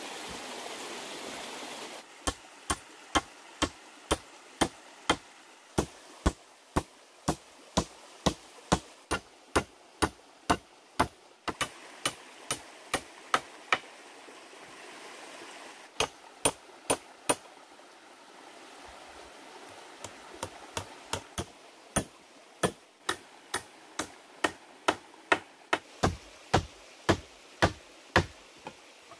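Steady running-water noise for about two seconds, then sharp knocking blows at about two a second. The blows come in runs broken by short pauses and go on almost to the end.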